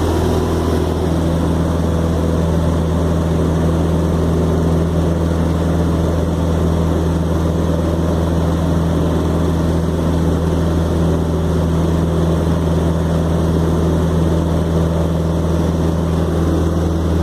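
Cessna 150's Continental O-200 four-cylinder engine and propeller running steadily at constant power: a loud, even drone that does not change in pitch.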